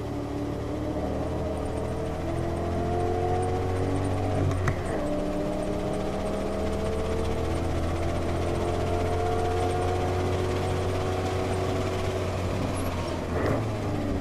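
Ford Mustang engine pulling under power at track speed, its note rising, over wind and tyre noise. There is a sharp knock about five seconds in, and an upshift near the end drops the engine note.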